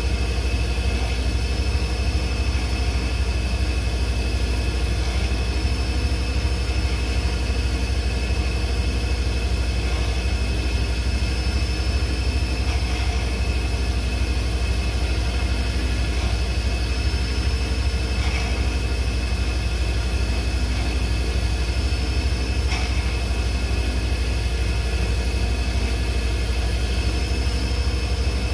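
Small wood lathe running steadily, with a strong low hum and a steady high whine, while a turning tool takes light cuts on a spinning pen blank; the cutting noise rises faintly now and then.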